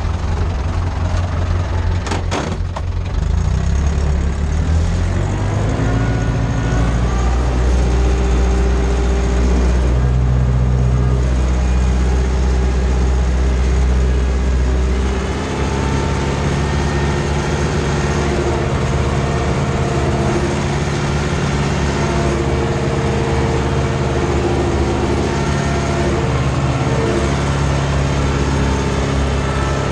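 Ursus C-360 tractor's four-cylinder diesel engine running steadily under load while pulling a cultivator through the soil, heard from the driver's seat. There is a brief rattle about two seconds in, and the engine note shifts about halfway through.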